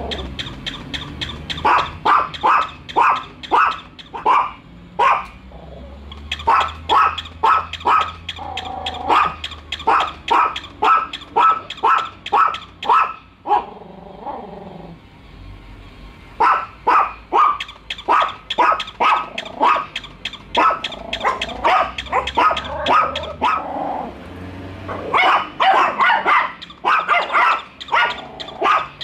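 Small dogs, a Chihuahua and a Yorkshire terrier, barking in rapid runs of sharp yaps, with short pauses about 5, 14 and 24 seconds in. This is wary barking at an unfamiliar toy dog.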